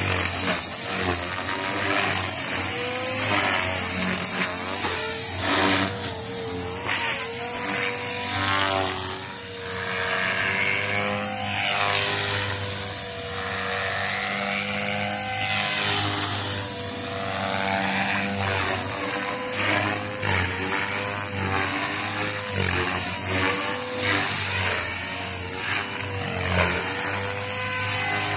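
Blade 450X electric RC helicopter in flight, its motor and rotor whine holding a steady pitch that dips briefly several times under load in manoeuvres, with a rushing sound that swells and fades as it moves.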